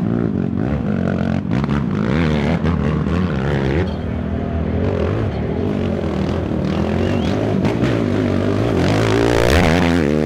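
Racing quad (ATV) engines revving up and down through a rough climb, the pitch rising and falling over and over, with a strong rising rev near the end.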